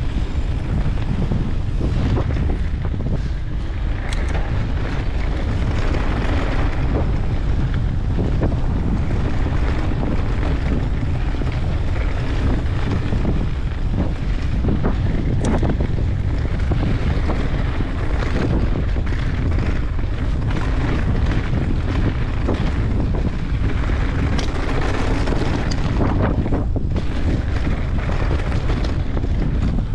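Wind buffeting the microphone of a mountain bike riding down a dirt trail, a steady low rumble, with scattered knocks and rattles from the bike over bumps.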